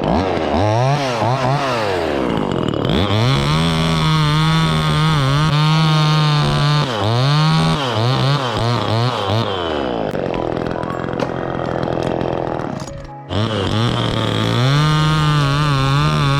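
Chainsaw cutting wood, the engine revving up to full throttle and easing back to idle again and again as it works through the limbs. It cuts out briefly about 13 seconds in, then revs up again.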